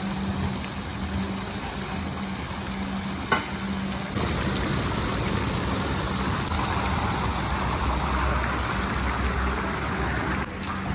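Shredded yellow carrots sizzling in hot oil in a giant pilaf kazan, over a steady low hum, with a single sharp click about three seconds in.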